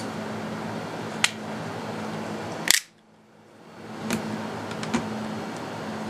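Handheld camcorder handling noise over a steady room hum, with a few light clicks. A sharp click nearly three seconds in is followed by the sound dropping out briefly and then fading back in.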